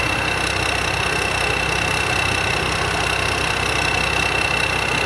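Combine harvester's diesel engine running steadily, with a constant high-pitched whine over the engine hum.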